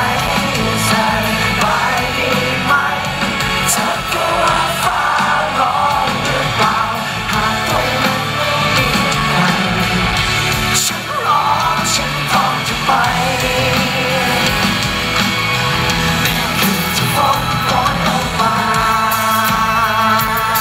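Live band performance at full volume: a male singer's vocal through a handheld microphone over electric guitar and a full band, heard through the PA.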